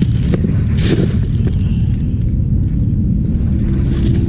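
Steady low rumble, with a plastic bag rustling briefly about a second in.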